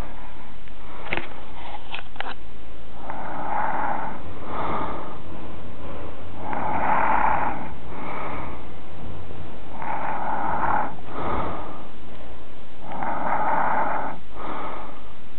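A sleeping person snoring: four long snores about three seconds apart, each followed closely by a shorter one. There are a few sharp clicks in the first couple of seconds.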